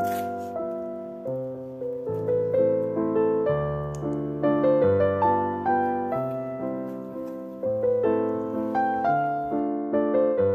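Background piano music: a slow, gentle tune of struck notes and chords, each one ringing and fading.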